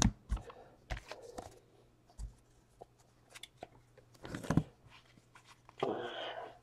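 Faint taps and rustles of trading cards and a foil card-pack wrapper being handled, with a louder crinkle about four seconds in and another near the end.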